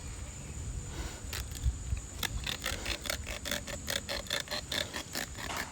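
A saw cutting through a hog's tusk: rapid, even scraping strokes, about four a second, starting about a second and a half in.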